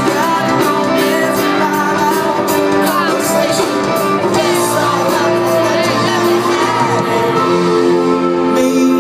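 Live pop-rock band playing with sung vocals, heard from the audience in a large arena hall.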